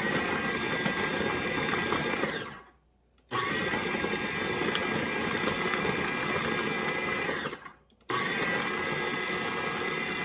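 KitchenAid 13-cup food processor pulsing in three runs of a few seconds each, with short pauses between, its motor whine falling in pitch as it winds down after the first two. The blade is cutting frozen butter into flour for pie crust.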